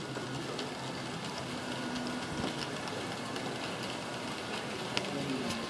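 HO-scale model trains running on a layout: a steady whir of small electric motors and wheels rolling on the rails, with a single click near the end.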